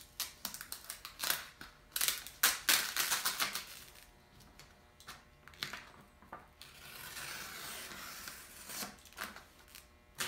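Plastic squeegee rubbed in short strokes over the transfer tape of a vinyl decal, crackling. Then, from about the middle, a steady papery hiss as the decal and transfer tape are peeled back off the backing paper, followed by a few short clicks.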